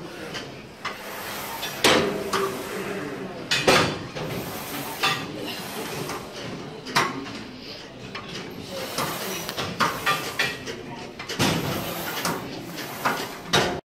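Irregular metallic clanks and knocks of gym weight equipment, several sharp hits of uneven loudness, over a background of faint voices.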